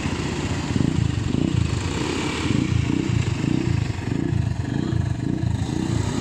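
Small quad bike (ATV) engines running as the bikes are ridden around.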